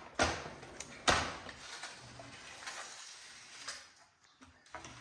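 Plastic knocks and clicks from the Roomba 655 being handled and its button pressed, two sharp knocks early on followed by a couple of seconds of rustling and a few light clicks.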